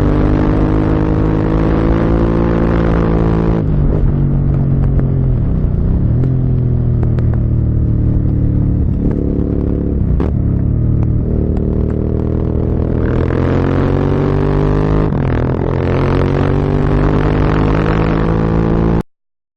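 Motorcycle engine riding on road, its pitch rising and falling several times with throttle and gear changes, louder and higher from about two-thirds in. The sound cuts off abruptly near the end.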